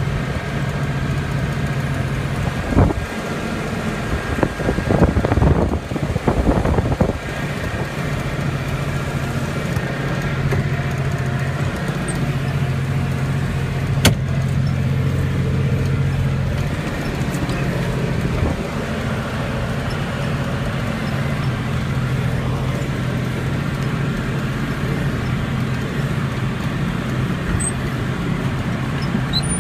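Steady low engine hum of a vehicle, heard from inside its cab, with a few rumbling knocks a few seconds in and a single sharp click about halfway through.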